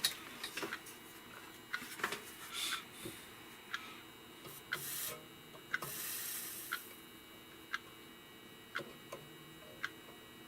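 Soldering iron melting solder and flux onto the end of a wire: scattered light clicks and taps of handling, with two short hisses about five and six seconds in as the flux sizzles.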